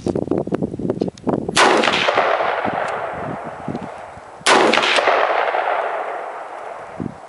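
Two shots from a Smith & Wesson M&P15 Sport AR-15 rifle, about three seconds apart, each a loud crack that fades away in a long echo. A quick patter of light clicks comes before the first shot.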